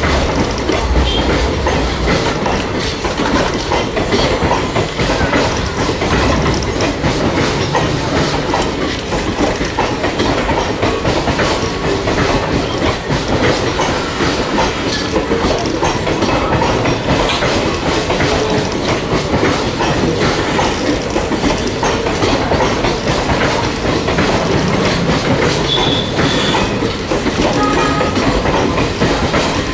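Indian Railways ICF passenger coaches rolling past over points and rail joints, their wheels clattering steadily as the train enters the station. A couple of brief high squeals come near the end.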